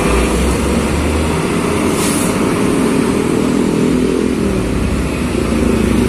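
Heavy diesel trucks and motorcycles passing at low speed in dense traffic, a steady engine rumble with a short hiss about two seconds in.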